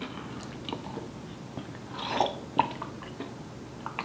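A person chewing food close to the microphone: small wet clicks and mouth smacks. About two seconds in there is a louder breathy burst, with a sharp click right after it.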